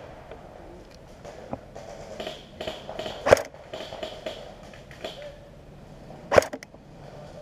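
Two sharp clicks about three seconds apart, over a low rustle of movement close to the microphone.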